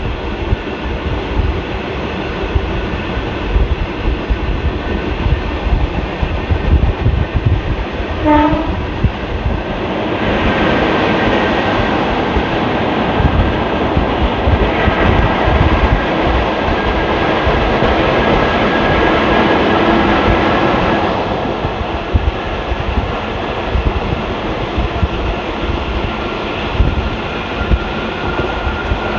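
Passenger train coach running at speed, the rumble and clatter of wheels on track heard from inside the coach. A brief horn toot sounds about eight seconds in, and the running noise grows louder and brighter from about ten seconds in until about twenty-one seconds in.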